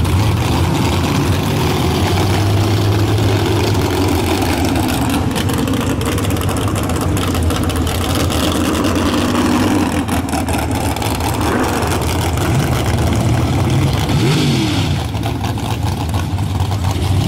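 Mud truck engine running loud, with the pitch sweeping up and down briefly near the end as it revs.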